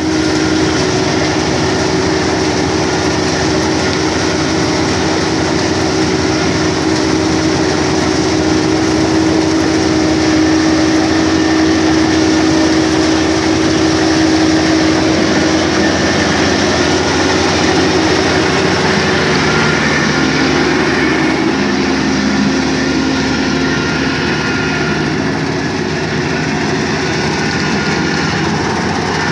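Kubota DC-35 combine harvester running, its diesel engine and machinery making a loud, steady drone. The pitch of the hum shifts a little over halfway through.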